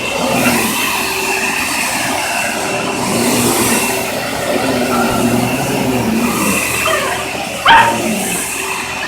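Vacuum cleaner running steadily with a constant motor whine, its pitch shifting a little as it is pushed about. About three-quarters of the way through comes one sudden, loud, short sound that rises in pitch.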